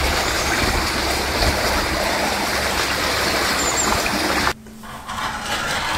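Steady rush of running stream water that cuts off abruptly about four and a half seconds in, leaving a much quieter room with a faint low hum.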